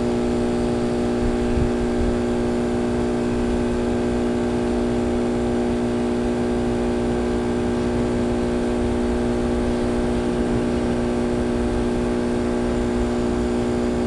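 A steady, unchanging machine hum from a motor or engine running continuously, with a strong low drone.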